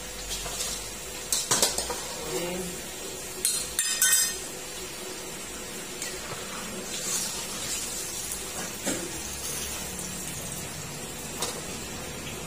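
Perforated metal skimmer clanking against a wok as fried batter bits are scooped out of the hot frying oil, over a steady sizzle. The clanks come every few seconds, and the loudest cluster of sharp clinks falls about four seconds in.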